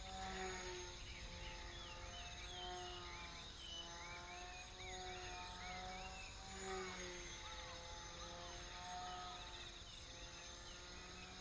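Small electric motor and propeller of a lightweight tethered RC plane buzzing as it flies circles on its line, the faint tone swelling and wavering in pitch every couple of seconds as it comes round each lap.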